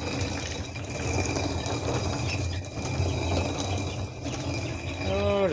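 Hand-turned stone quern grinding grain: a steady low rumble of the upper millstone grinding over the lower one, swelling and easing as it turns. A short call with a wavering pitch is heard near the end.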